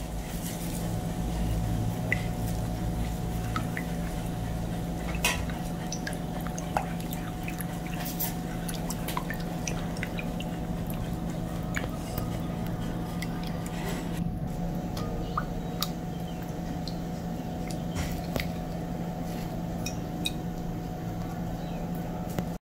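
A silicone spatula stirring a thin milk and yeast mixture in a glass bowl: liquid swishing with scattered light clicks and taps against the glass, over a steady low hum.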